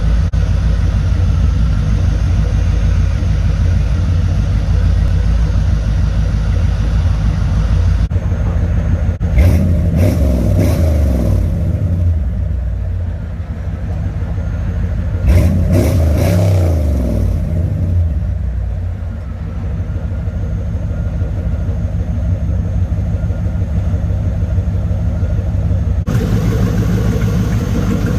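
C4 Corvette V8 exhaust idling steadily, then two quick revs about six seconds apart, each rising and falling back to idle. The sound changes abruptly twice, once about eight seconds in and again near the end, as different mufflers are heard.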